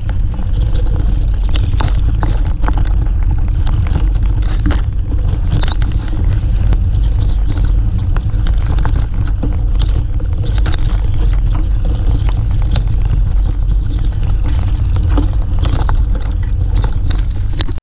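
Mountain bike riding fast down a rough dirt trail, heard from an on-board action camera: a steady heavy rumble of wind and vibration on the microphone, with frequent sharp rattles and knocks from the bike and the camera mount over the bumps.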